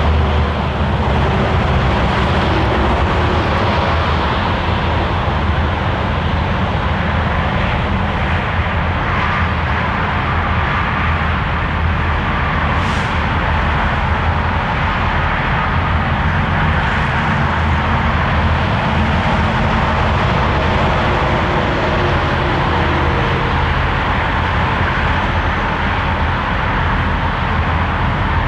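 Diesel locomotives working a freight train, with a steady, loud engine drone and running noise that holds level throughout.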